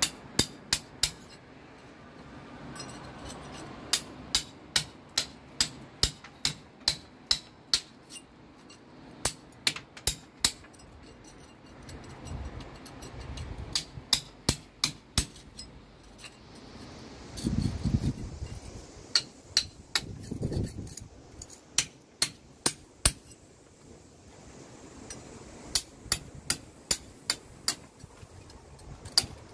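Hand hammer striking a thin plugging chisel to cut old mortar out of brick joints: sharp metallic taps in runs of about two a second, with short pauses between runs. Two brief low rumbles come around the middle.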